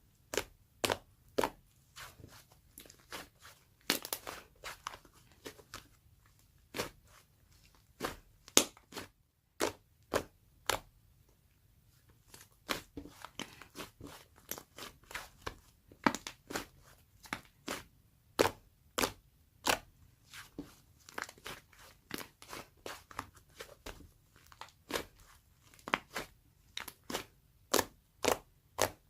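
A long run of sharp, close crunching clicks at an uneven pace, about one to three a second.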